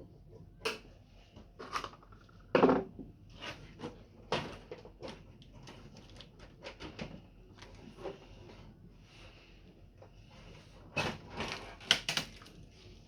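Scattered knocks, clicks and rattles of hand work on an air-conditioner unit during disassembly, with the sharpest strikes about two and a half seconds in and a quick cluster near the end.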